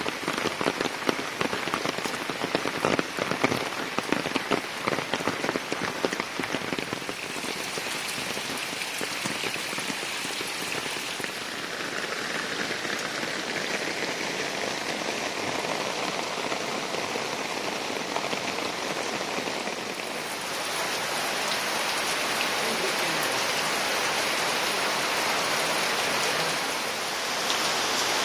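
Rain falling steadily. For the first several seconds close drops tick and patter, then it evens out into a smooth hiss, which gets somewhat louder about two-thirds of the way through.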